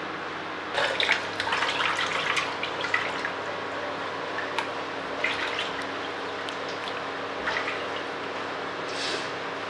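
Water splashing and dripping as raw mackerel pieces are rubbed and rinsed by hand in a clay pot of water. The splashing starts about a second in and is busiest for the next two seconds, then comes only now and then.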